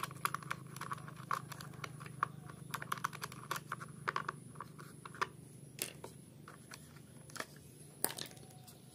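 Small plastic clicks and scratches as the thumb-screw knob is unscrewed and the plastic air filter cover is worked off a brush cutter's carburetor, with a few sharper knocks in the second half.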